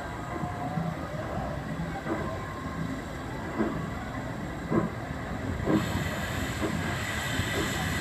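Roy O. Disney, the Walt Disney World Railroad's No. 4 steam locomotive, starting away after taking on water. Its exhaust chuffs come slowly at first and then quicker, and about six seconds in a hiss of steam from the open cylinder cocks joins them.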